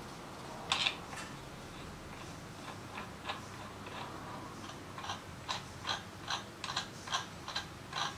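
Light metallic clicks as a belt-drive clutch basket is turned and worked by hand on its hub: one click about a second in, then a run of about two clicks a second from about halfway.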